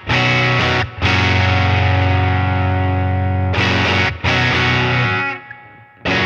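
Electric guitar played through a digital amp emulation of a Fender Deluxe on its Vibrato channel, with a little drive: full chords struck about three times and left to ring, the last one fading out near the end.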